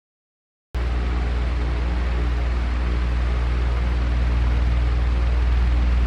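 Electric fan running: a steady low hum with a rush of air, starting abruptly about a second in.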